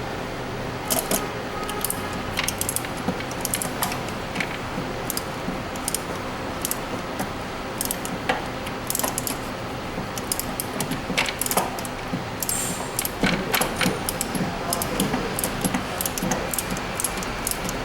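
Metal hand tools clinking and tapping in irregular light metallic clicks, busiest in the second half, over a steady low hum.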